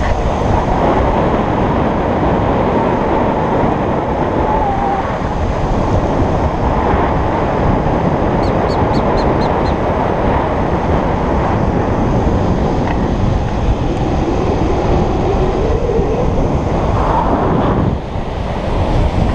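Steady rush of wind on the microphone at downhill skateboarding speed, mixed with the roll of longboard wheels on asphalt.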